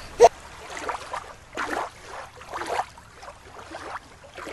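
Small waves lapping over wet sand and gravel at the water's edge, coming in soft surges about once a second.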